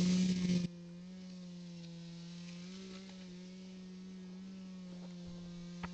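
A small engine running steadily at one even pitch, loud at first, then dropping off sharply under a second in and carrying on much fainter.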